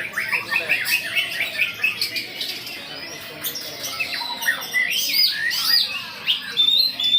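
Many songbirds singing at once, a dense tangle of overlapping quick chirps, trills and whistled notes, typical of caged birds at a songbird singing contest.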